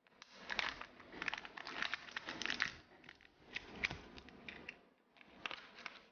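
Crinkly wrapper crinkling and crackling as it is handled, with many small sharp crackles. It comes in three spells, with short lulls about three and five seconds in.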